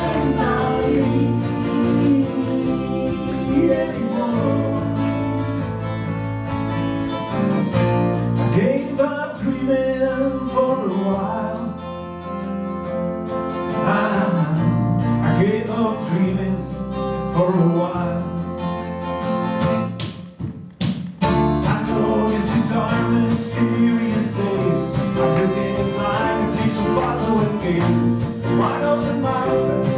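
Live acoustic band music: plucked guitar and bass with a singing voice, briefly dropping away about two-thirds of the way through.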